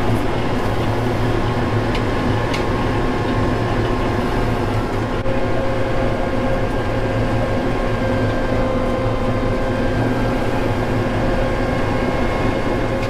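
Tractor-drawn onion harvester running steadily in the field: an even engine drone with a low hum and steady whining tones over it.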